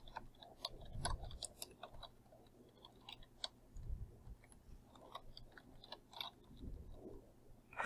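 Computer keyboard being typed on: faint, irregular key clicks.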